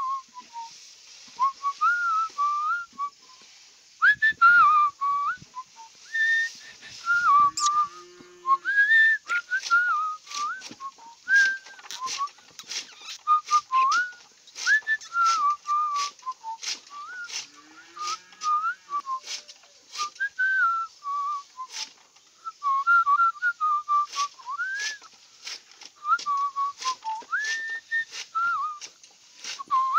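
A person whistling a wandering tune. Over it come sharp chopping clicks, about one or two a second, from a hand-lever chaff cutter's blade slicing through fresh grass. The clicks grow steady about a third of the way in.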